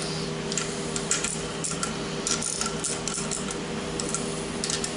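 Irregular light metallic clicks of a hand tool working the valve-cover bolts loose on a Honda two-cylinder generator engine, over a steady low hum.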